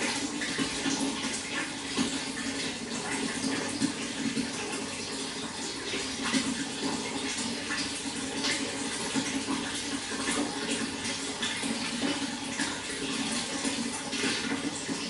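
Running water, a steady splashing flow with many small irregular splashes.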